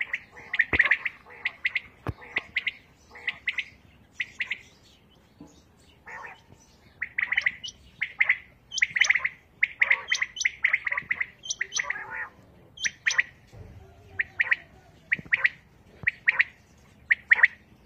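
Quails calling from covered cages: many short, sharp call notes in quick runs, several birds overlapping. There are brief lulls about five seconds in and again near fourteen seconds.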